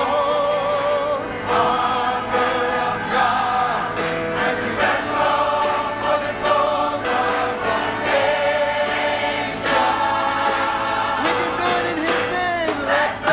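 Large mixed choir singing a gospel song, holding long chords with vibrato that change every second or two. Near the end a single voice glides down and back up in pitch.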